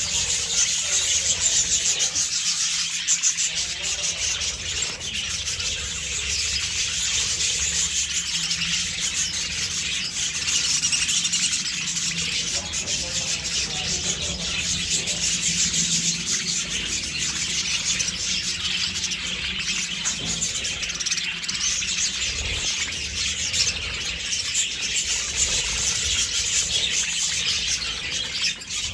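A flock of budgerigars chattering and chirping together in an aviary, a dense, continuous, high-pitched twittering with no pause.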